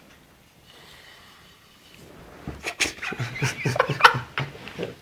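Snoring: faint breathing at first, then from about two and a half seconds in a loud, irregular, rapid run of snores.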